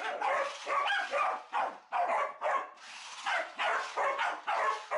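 A dog barking repeatedly, about two short barks a second, with a brief pause about halfway through.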